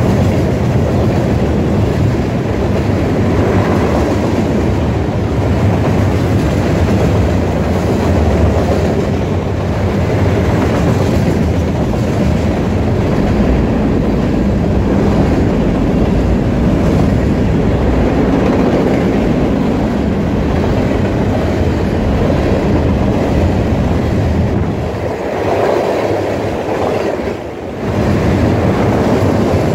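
Freight train cars rolling past at speed close by: steady, loud noise of steel wheels on the rails, dipping briefly near the end.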